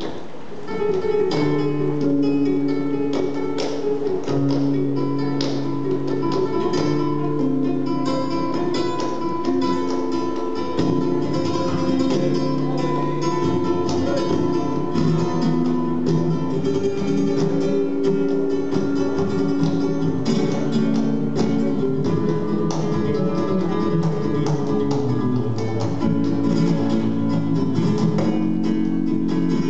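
Flamenco cantiñas: acoustic flamenco guitar playing with hand-clapping palmas, and a male singer holding long notes that step from pitch to pitch.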